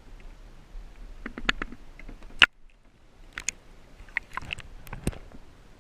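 A series of irregular sharp clicks and knocks, with one loud knock about two and a half seconds in, a brief near-silent gap after it, then more knocks.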